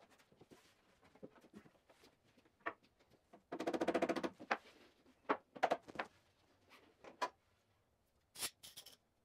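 Mallet knocking on a maple bookcase assembly: a loud, rapid run of knocks just under a second long about a third of the way in, then several single knocks, and a couple of sharp, high clicks near the end.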